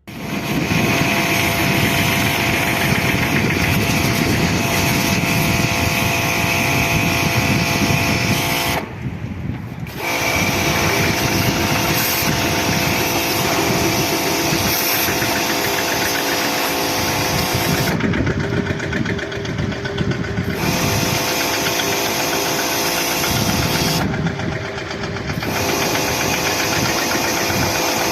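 Gas-engine pressure washer running steadily with its water jet hissing; the spray cuts off briefly three times while the engine keeps running.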